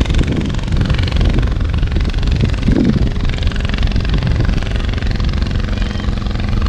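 Wind buffeting the microphone: a loud, uneven low rumble, with a faint steady hum underneath.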